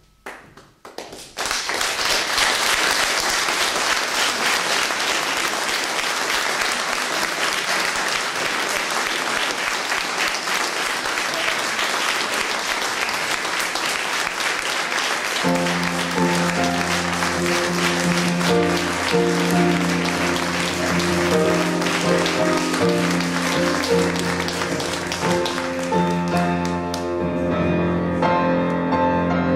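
An audience applauding at length. About halfway through, piano music comes in under the clapping, and the applause fades out near the end, leaving the piano.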